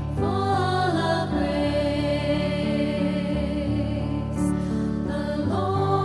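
Devotional music: sustained held chords with singing voices that glide in near the start and again near the end.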